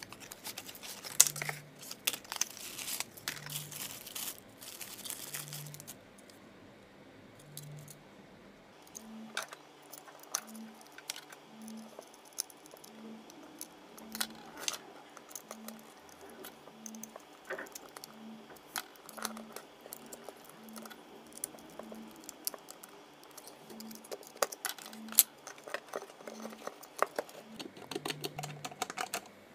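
Hands unboxing and fitting a smart wall dimmer switch: cardboard and plastic packaging rustling and crinkling for the first six seconds, then scattered clicks and taps of the plastic switch body and wires being handled. Near the end a screwdriver works the mounting screws, with a quick run of clicks.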